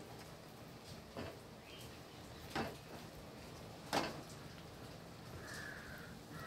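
Wooden spatula stirring a thick urad dal and ghee mixture in a steel pan, knocking against the pan three times about a second and a half apart, the third knock the loudest. A faint chirping call near the end.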